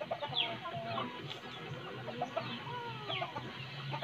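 Fowl clucking, with repeated high, falling chirps mixed in.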